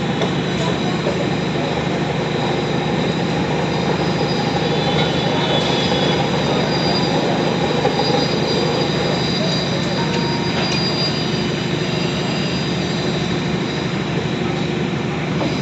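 Heavy machinery running steadily with a low hum, and thin high-pitched metallic squeals that come and go in the middle.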